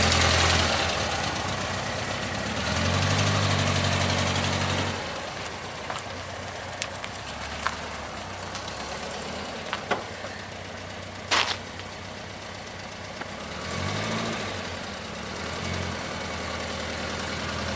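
Volkswagen Super Beetle's air-cooled flat-four engine, freshly rebuilt, pulling the car away. The pitch rises as it accelerates about three seconds in and again near the end, with a lower, quieter running between. There are a few sharp clicks, the loudest about eleven seconds in.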